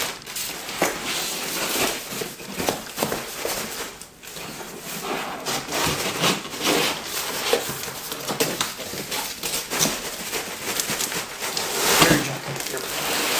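Cardboard shipping box rustling and scraping as its flaps are handled and the box is tipped, with scattered knocks. Plastic wrapping crinkles as a wrapped item is pulled out; this is loudest near the end.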